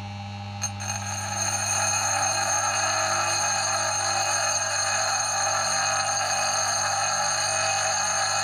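Electric motor of a bandsaw-blade sharpener running with a steady hum. From about a second in, a hand-held dressing stone is pressed against the spinning grinding wheel, adding a steady grinding hiss as the wheel is dressed to a 45-degree bevel.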